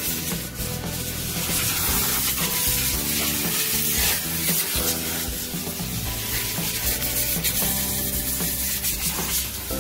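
A steady hiss runs under background music whose notes change every half second or so.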